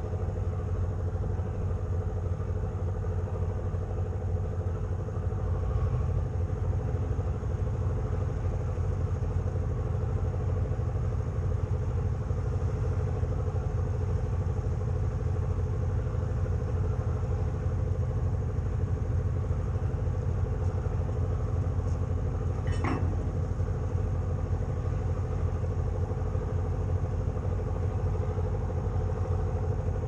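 Tugboat's diesel engines running steadily while it works a barge, the low drone growing a little louder about five seconds in. A single short click sounds about three-quarters of the way through.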